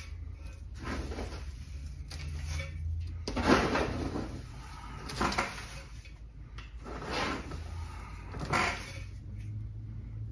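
Fingers spreading and pressing gritty bonsai soil of baked clay (Turface) and composted mulch inside a concrete bonsai pot: a series of uneven dry scraping rustles, the loudest about three and a half seconds in.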